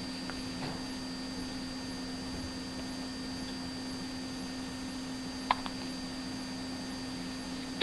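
A single short, sharp hiccup about five and a half seconds in, over a steady background hum.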